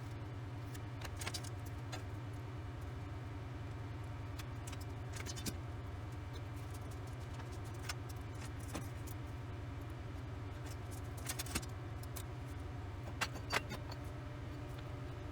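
Short sharp metallic clinks, a few at a time and scattered, with the two loudest near the end, over a steady low hum.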